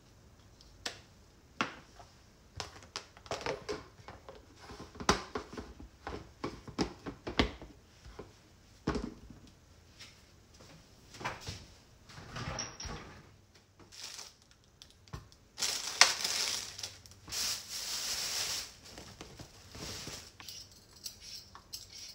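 Kitchen handling sounds: a salt-and-pepper shaker is shaken over food, then dishes and containers are knocked and set down on the counter. A louder rustling noise lasts a few seconds near the end.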